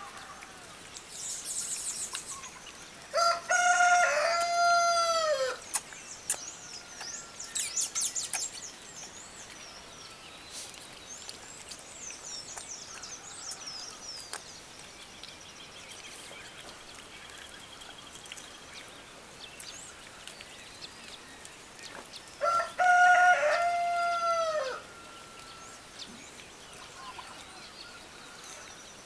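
A rooster crowing twice, about twenty seconds apart, each crow a couple of seconds long and falling in pitch at its end. Small birds chirp high and faintly in between.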